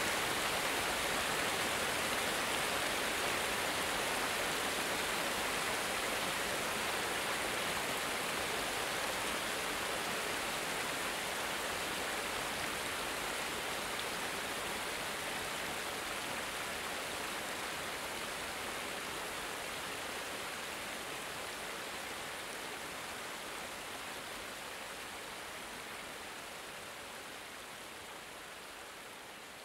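A small water cascade running in a steady, even rush, slowly fading out toward the end.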